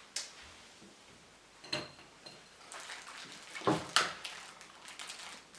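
A few sharp clicks and knocks of tableware and food being handled at a breakfast table, the loudest pair about two-thirds through, with a stretch of light crackling and rustling around them.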